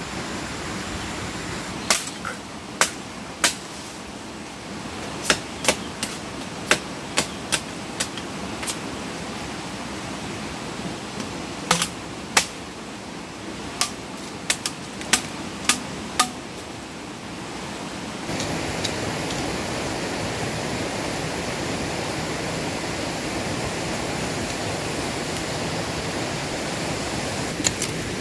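Rushing stream water, a steady noise, with a run of sharp, irregular knocks over roughly the first half. About two-thirds of the way in, the water gets louder and steadier.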